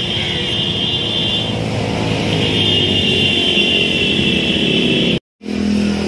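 An engine running steadily, with a high whine over it during two stretches. The sound breaks off at a cut a little past five seconds, and a steadier hum follows.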